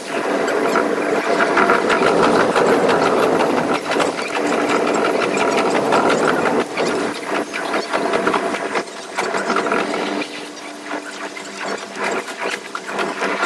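Running noise of the Kuroshio limited express train heard from the front: wheels rattling and clicking over the rails under a steady hum. It gets somewhat quieter after about ten seconds.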